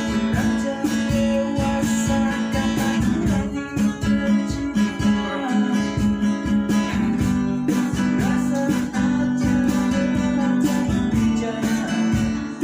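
Acoustic band music: strummed guitars with a cajon keeping the beat.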